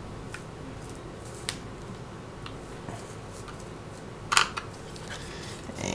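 A few light clicks and one sharper click about four seconds in, from a small Phillips screwdriver working the stubborn screws of a laptop SSD caddy, over a low steady room hum.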